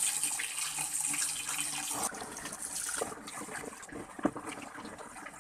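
Water running in a steady hiss, likely while parts are being rinsed, that drops away about two seconds in; a few light clicks and knocks follow, one louder near the end.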